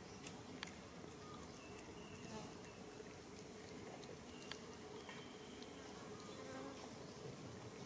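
Faint, steady buzzing of insects over quiet forest ambience, with a few small clicks.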